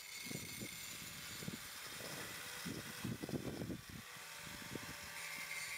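Angle grinder running faintly with a steady whine, grinding old weld and rust off a steel gate handle back to bare metal.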